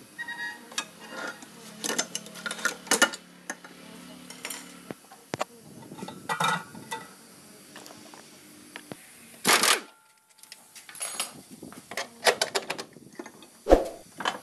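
Metal tools clinking and clanking against the steel rear suspension bolts and axle parts as they are undone, a scattered run of short sharp knocks. There is one louder burst of noise about nine and a half seconds in.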